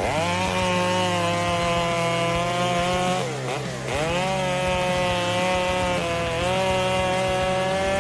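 Chainsaw running at high speed, cutting wood. Its pitch sags and recovers briefly a little over three seconds in and again around six seconds.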